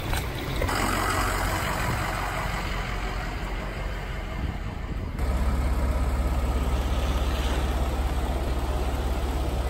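An engine running steadily with a low drone under a rushing noise; the low drone becomes stronger about five seconds in.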